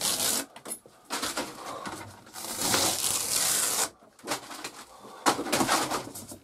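Thin vinyl-faced ceiling paneling being pried with a blade and torn away from the styrofoam insulation it is glued to: scraping and crackling, with one longer rasping tear a little before halfway.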